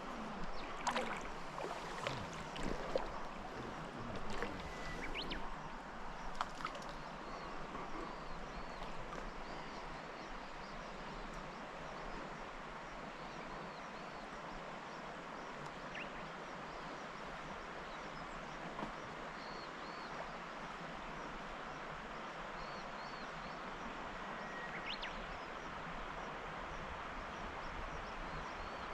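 Steady rush of flowing river water, with a few sharp clicks and knocks in the first several seconds.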